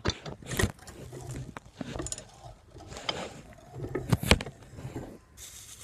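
Bench vise being cranked tight on a hacky sack: sharp metal clunks from the vise's sliding handle, loudest about half a second in and again about four seconds in, with handling rustle and the crackle of the sack's pellet filling being crushed between the jaws.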